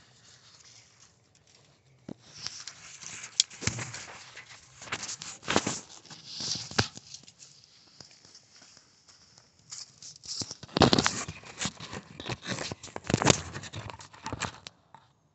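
Handling noise from fingers rubbing and knocking on the camera as it is fumbled: irregular scrapes and taps with short lulls, cutting off suddenly near the end.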